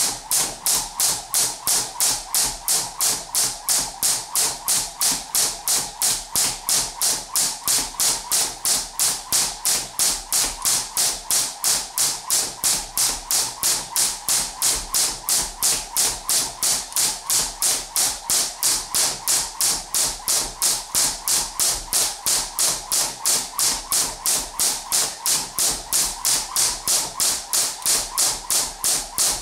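Crossrope jump rope slapping the floor on every turn in a steady, even rhythm of a little more than two strikes a second.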